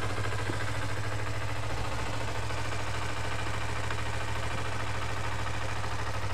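2007 Kawasaki Ninja 250's parallel-twin engine idling steadily, already warmed up.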